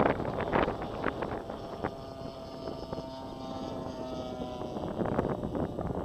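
Two-cylinder petrol engine of a radio-controlled P-51 Mustang scale model droning in flight overhead, its pitch sinking slightly as it passes. Gusts of wind buffet the microphone at the start and again near the end.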